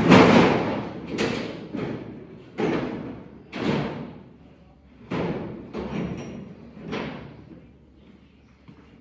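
Steel hood of a K10 pickup being wrestled off and handled, giving a series of about eight heavy, hollow thumps and clunks with a short ring after each, the loudest right at the start.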